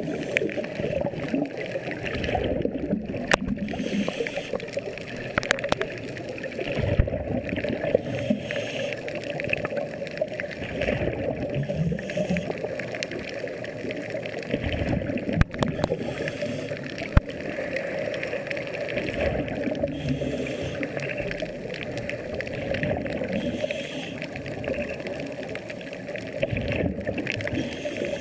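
Continuous underwater gurgling and bubbling of air rising from the divers' air-fed diving helmets, muffled as picked up by a submerged camera, with a couple of sharp clicks in the middle.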